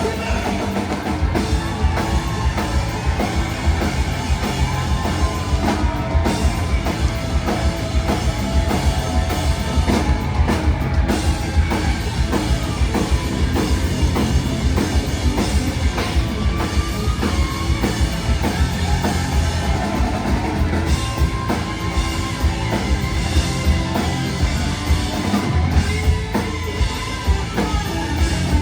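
Rock band playing live: a drum kit keeping a steady beat under electric guitars, with a melodic line weaving over the top and no clear singing.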